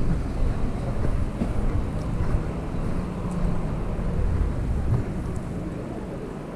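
Wind buffeting the microphone of a body-worn camera while walking outdoors, a dense uneven low rumble over street noise, easing slightly near the end.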